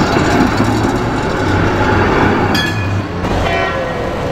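Articulated yellow RET tram passing close by, its wheels and running gear rumbling over the rails, with a brief high ringing tone about two and a half seconds in.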